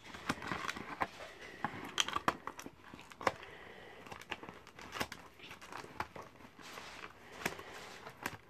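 Cardboard and clear plastic toy packaging crinkling and rustling, with irregular light clicks and snips as scissors cut away the tape holding the toy in.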